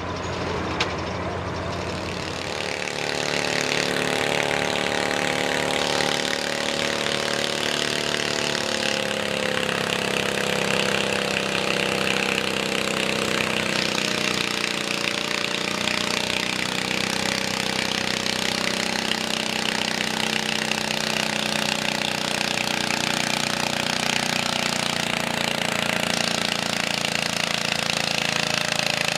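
A John Deere 210 garden tractor's engine running steadily under load as it drags a weight-transfer pulling sled down the dirt track, its pitch drifting slightly.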